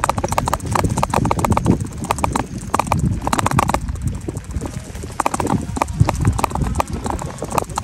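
Rapid bursts of clicking and rattling from a moving e-bike, coming in short runs with brief gaps, over a low wind rumble on the microphone.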